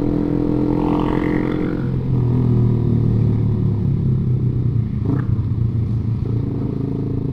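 Motorcycle engine running at a steady speed while riding, a low even hum with one short click about five seconds in.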